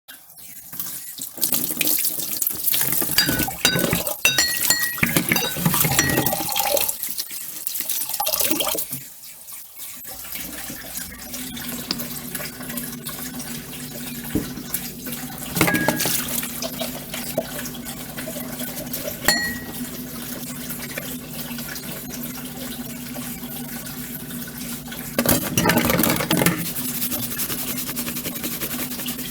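Dishes being washed by hand at a sink: plates and glasses clattering and clinking together for about the first ten seconds, then a tap running steadily with a low hum, broken by a few single clinks of dishware and a louder stretch of splashing and clatter near the end.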